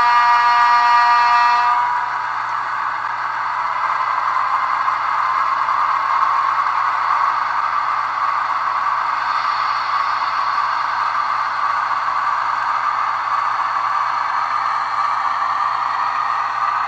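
Sound decoder of a Roco HO-scale M62 diesel locomotive playing through its small speaker: a horn blast for the first two seconds, then the recorded diesel engine running steadily.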